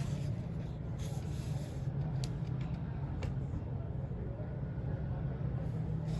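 Steady low hum with a soft rustle about a second in and two isolated sharp clicks a second apart.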